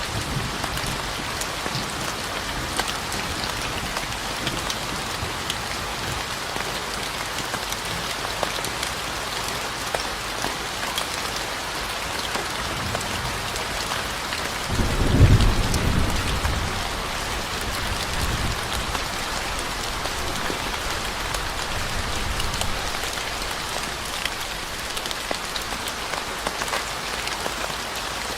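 Steady rain falling, with many small drop impacts, and a low rumble of thunder swelling about halfway through before fading out.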